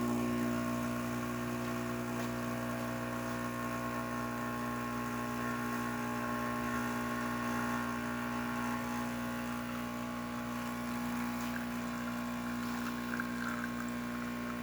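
Rocket espresso machine's newly replaced water pump running steadily as it pulls a test shot of espresso. The steady hum shows the new pump is working.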